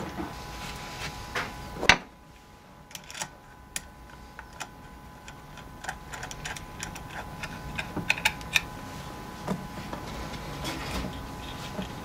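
Light, irregular clicks and taps of small metal parts (washers, screws and a screwdriver) against the metal housing of an old Foredom Series H flex shaft motor being put back together.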